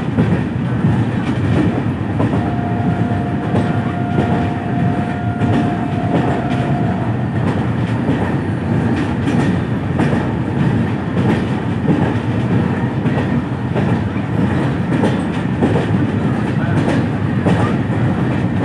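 Train running along the track, heard from aboard: a steady rumble of wheels on rail with light clicks over the rail joints. About two seconds in, a thin steady whine sounds for around four seconds.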